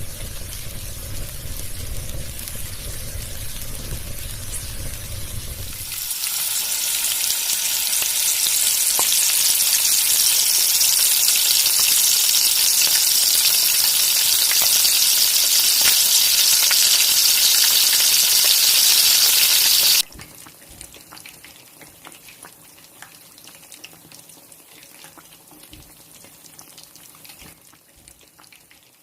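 Food frying in hot oil, a loud steady sizzle that cuts off abruptly about two-thirds of the way through; before it, a low rumble for the first few seconds, and after it a much fainter sizzle.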